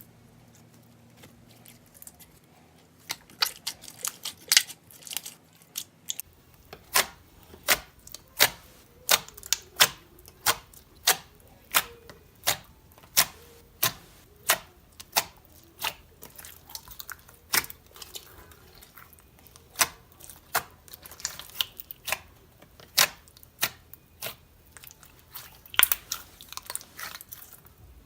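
Mixed slime being squeezed and kneaded by hand, giving sharp popping clicks as trapped air bursts, about one or two pops a second after the first few quiet seconds.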